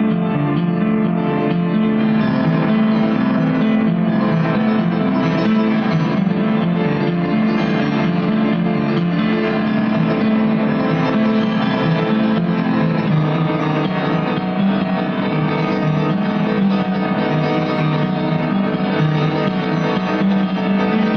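A band playing an instrumental passage, guitar over keyboard chords, with no singing.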